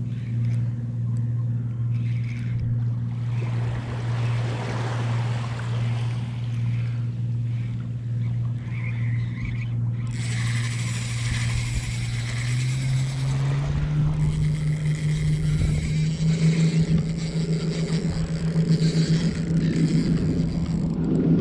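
Spinning reel being wound in with a hooked fish on, its gears giving a steady whirring hum that steps up in pitch about 13 seconds in as the winding speeds up.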